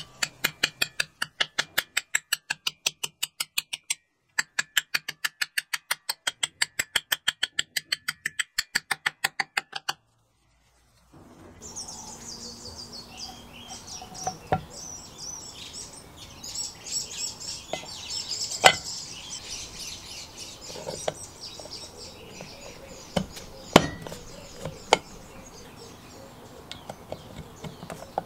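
Ball-peen hammer tapping rapidly on a chain hoist's steel cover plate, about four or five light blows a second for ten seconds with a brief break near 4 s. After a pause, birds chirp in the background while occasional sharp metal clicks come from parts being handled.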